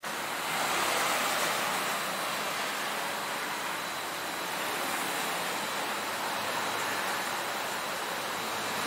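Steady street ambience: a continuous, even hiss of road traffic, with no single passing vehicle standing out.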